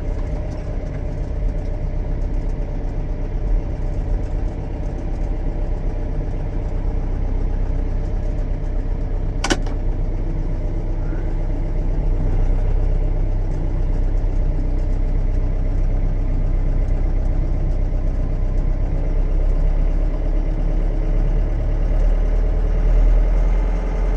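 John Deere 6420 tractor's diesel engine idling steadily, with a single sharp click about nine and a half seconds in.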